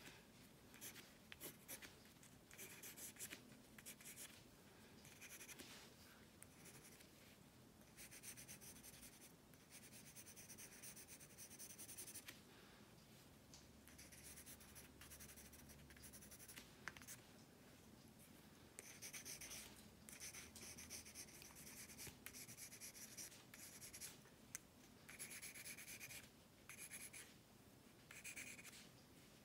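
A pencil scratching on paper in runs of short, quick sketching strokes, with brief pauses between the runs; faint.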